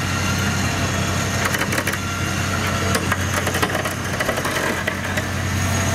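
A vehicle engine idling steadily, low and unbroken, with scattered sharp cracks and snaps between about one and a half and four seconds in.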